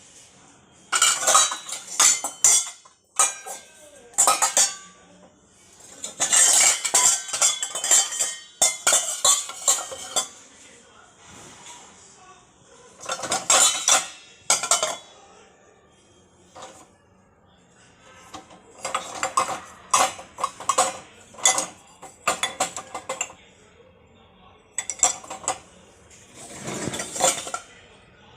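Dishes and cutlery being handled, clattering and clinking in irregular bursts of a second or two with short pauses between.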